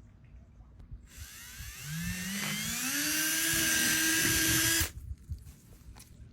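Electric drill spinning up, its motor whine rising in pitch and then holding steady over a loud hiss, cutting off suddenly just before five seconds.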